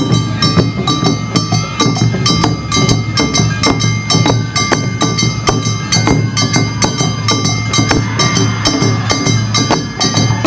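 Awa Odori festival band playing live: percussion struck in a fast, steady rhythm, several strikes a second, under sustained high tones.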